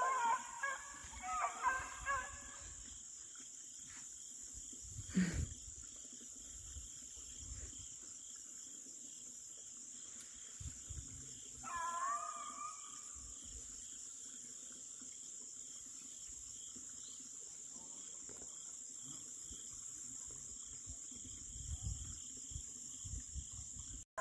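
Beagles baying in the distance while running a track: a few calls near the start and one falling bay about twelve seconds in, over a steady high-pitched drone. A single soft thump about five seconds in.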